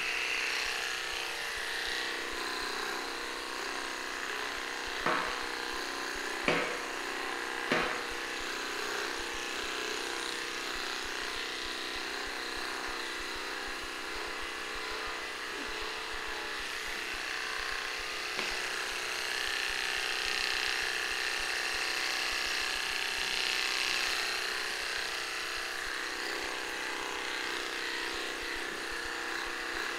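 Small electric pet hair clippers buzzing steadily as they trim a little dog's coat. Three sharp clicks come in quick succession about five to eight seconds in.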